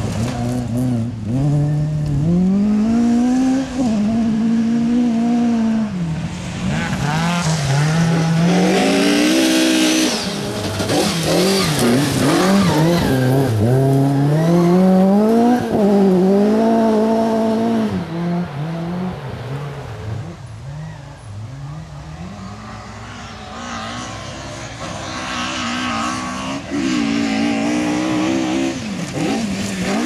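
Ford Sierra RS500 Cosworth rally car's turbocharged 2.0-litre four-cylinder engine revving hard, its pitch climbing and dropping again and again through gear changes and lifts. It fades for a few seconds past the middle, then grows louder again as the car comes back.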